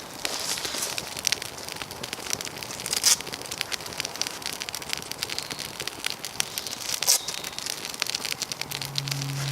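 Wood fire crackling and popping with dense, irregular snaps, two of them louder about three and seven seconds in.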